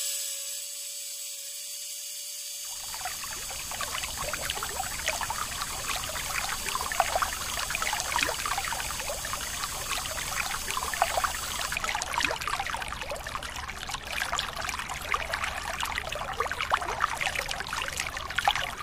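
Water pouring from a thin plastic hose onto soil and splashing into a shallow flooded plot, starting about three seconds in and running on steadily.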